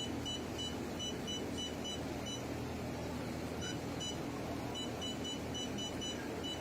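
Short high beeps from a jewelry laser welding machine's control panel, one for each key press, in quick irregular runs with a pause of about a second and a half in the middle. A steady low hum runs underneath.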